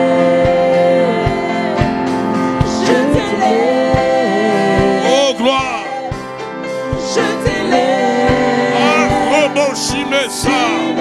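Slow gospel worship music: a man's voice sings long, bending notes with vibrato over sustained instrumental chords and a steady soft low beat.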